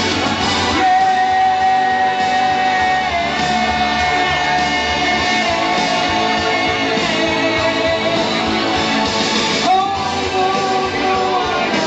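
A man singing karaoke into a microphone over a pop-rock backing track with guitar, holding long sustained notes, with a brief break in the voice a little before the end.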